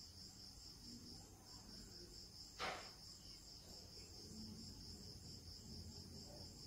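Faint, steady pulsing trill of a cricket, with a single short tap about two and a half seconds in.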